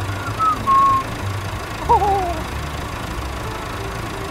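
Low, steady rumble of an idling tractor engine, with a few whistled notes in the first second and a short falling, wavering whistle about two seconds in.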